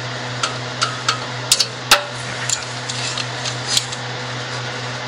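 Scattered metallic clicks and knocks from hands and tools working on the exhaust pipe under a car, one sharper knock about two seconds in, over a steady low hum.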